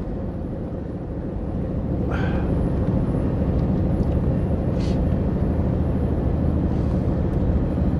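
Scania lorry's diesel engine running under way, with road noise, heard inside the cab; the drone builds a little about a second in and then holds steady. Two brief soft noises cut through it, the second a short hiss about five seconds in.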